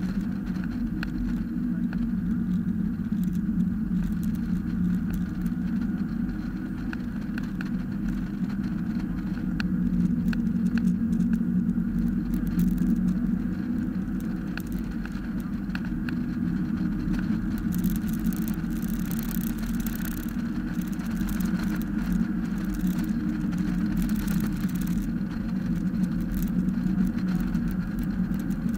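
Mazda Miata's four-cylinder engine running under load on a race track, heard from inside the open-top cockpit with wind and road noise mixed in. A stretch of stronger hissing comes in past the halfway point.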